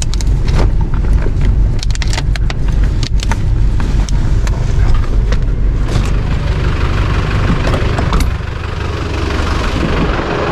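Inside a 4x4's cabin on rough off-road ground: a heavy low rumble from the vehicle, with loose cargo rattling and knocking at the jolts. About eight seconds in, the rattling stops and a quieter, steadier outdoor noise takes over.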